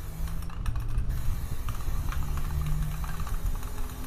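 Aerosol spray-paint can hissing, strongest in about the first second, with scattered light clicks and a low hum underneath.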